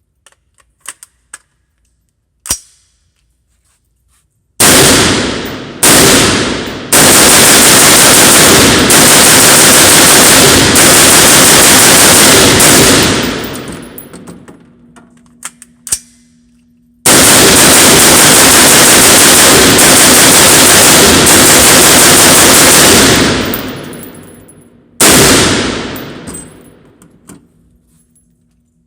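Diamondback DB15 AR-15 in 5.56 with an Epsilon VG6 compensator fired in rapid strings of very loud shots: two long strings of several seconds each, plus a few short bursts, each string trailing off into echo. A few light clicks come before the first shots.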